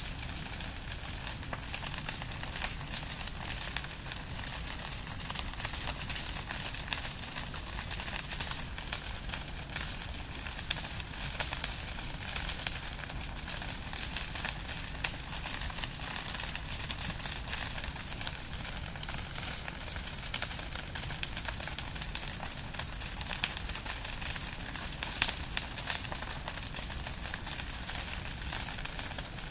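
Fire burning with a steady hissing crackle of dense small pops, and a couple of louder pops past the three-quarter mark.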